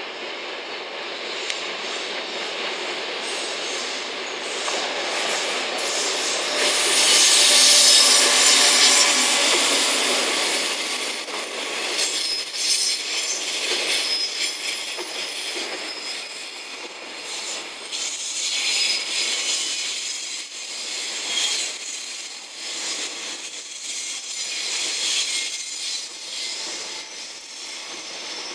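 JR Freight EF210 electric locomotive approaching and passing at speed, then its container flat wagons rolling by, with a steady rhythm of wheelsets beating over the rail joints about once a second. The noise builds, peaks as the locomotive goes by, then stays at the level of the passing wagons.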